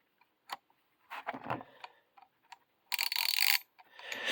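Tekton 1/2-inch drive ratchet clicking as its handle is swung back and forth. First come scattered single clicks, then a fast run of ratcheting about three seconds in.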